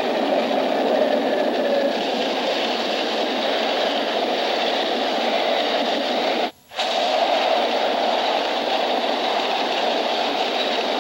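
Diesel freight train rolling past close by, a steady dense rumble and rattle of locomotive and cars, on an old hissy film soundtrack. The sound cuts out for a moment about two-thirds of the way through, at a splice, then the cars keep rolling.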